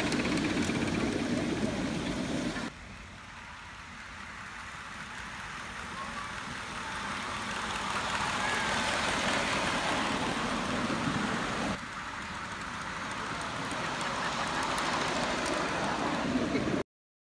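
Miniature railway train running: a steady rumbling, hissing mix of wheels on track and locomotive noise. It breaks off abruptly twice and builds up again each time, then cuts to silence near the end.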